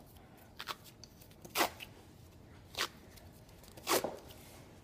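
Hockey grip tape being peeled off the roll in short rips as it is wrapped around the stick, about four rips roughly a second apart.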